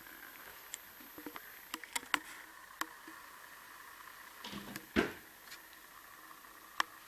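Scattered light clicks and knocks over a steady hiss, with one louder thump about five seconds in.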